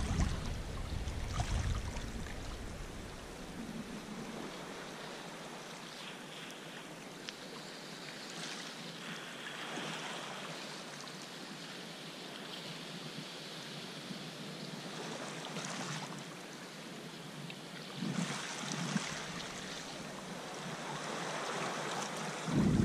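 Sea water sloshing and lapping against rocks and the kayak's hull, with a paddle swishing through the water every few seconds. There is a brief low rumble near the start.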